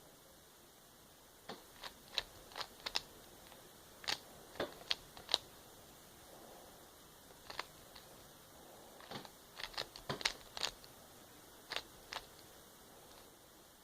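Plastic Rubik's cube being turned by hand, its layers clicking in quick clusters of several turns with short pauses between.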